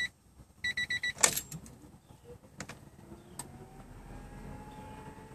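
Honda car's warning chime beeping rapidly in the cabin, then stopping, followed by a sharp loud thud about a second in. A few clicks follow, then a faint steady hum with a slowly rising tone.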